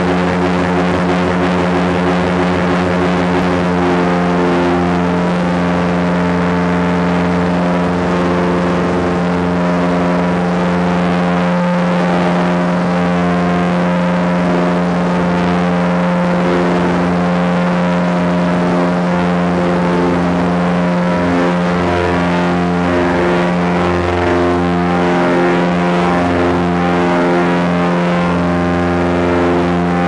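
A small plane's engine and propeller running steadily during the takeoff roll and climb-out, heard from inside the cabin as a loud, even drone with one strong low tone and its overtones.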